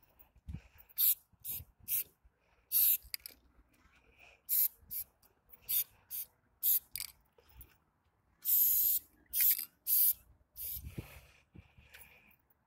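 Aerosol spray-paint can spraying onto a wall in many short, quick spurts with brief pauses between, with a few longer sprays late on.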